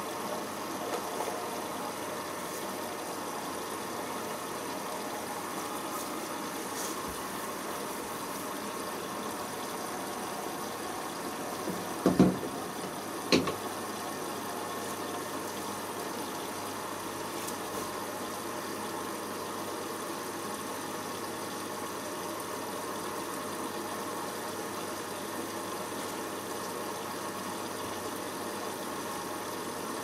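Hoover Optima OPH714D washing machine at the start of its cotton pre-wash, water running in steadily as the drum fills. Two sharp knocks come about a second apart near the middle.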